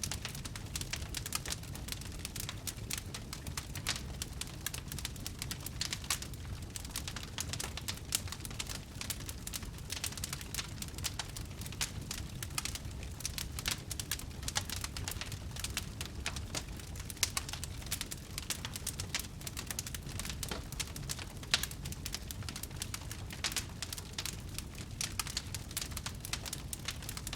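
Fire crackling: a dense, irregular run of small sharp pops and snaps over a low rumble, with one louder pop about three-quarters of the way through.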